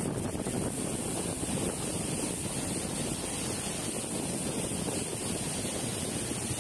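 Steady wind buffeting the microphone, mixed with the wash of sea water around a boat: an even rushing noise with no distinct events.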